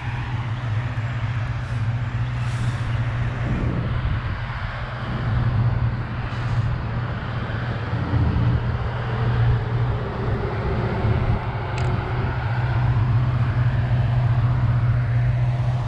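Road traffic going by, cars and trucks: a continuous wash of noise that swells and fades over a steady low hum.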